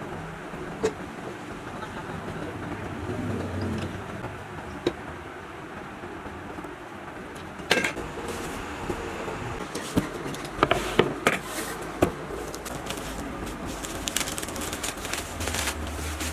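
Scattered sharp clicks and knocks over steady background noise, with a cluster of them about ten to twelve seconds in and more near the end.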